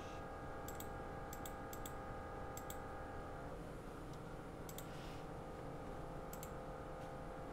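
Computer mouse button clicking several times, mostly in quick press-and-release pairs, over a faint steady hum.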